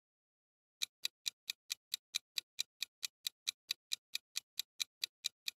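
Clock-ticking sound effect used as a countdown timer: a steady run of sharp, evenly spaced ticks, about four and a half a second, starting about a second in.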